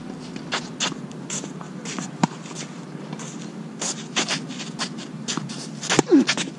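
Tennis shoes shuffling and scuffing on the court as the player moves at the baseline, a run of short scrapes, with a sharp knock about two seconds in. Near the end comes the loudest sound, the pock of his racket striking the ball on a forehand.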